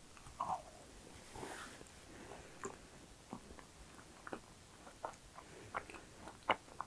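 Close-miked chewing of a macaron: soft, scattered mouth clicks and smacks, with one sharper click about six and a half seconds in.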